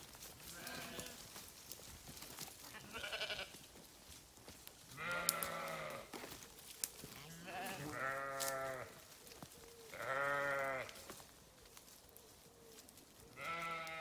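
Sheep bleating repeatedly: about six drawn-out, wavering calls of around a second each, a few seconds apart, the first two faint and the loudest near the middle.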